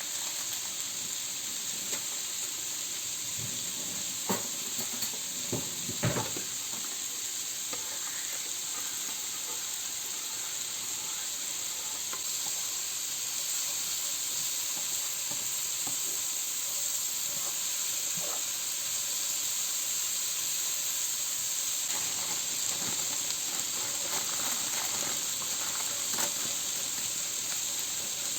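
Food sizzling steadily in a frying pan, with a few light knocks of a utensil against the pan about four to six seconds in.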